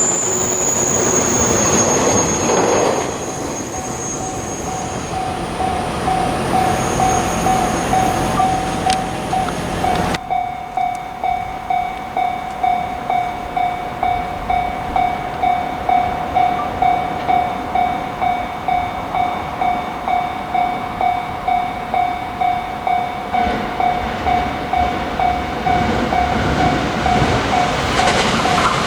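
Railway level crossing alarm ringing steadily at about two strokes a second. For the first ten seconds a train runs past with a high wheel squeal, and that noise cuts off suddenly. Train noise rises again near the end.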